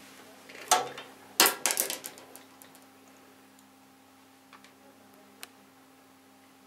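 A plastic brush clattering against a ceramic washbasin as it is picked up from the basin's edge: one knock, then a quick rattle of several knocks. It is followed by two faint ticks over a steady low hum.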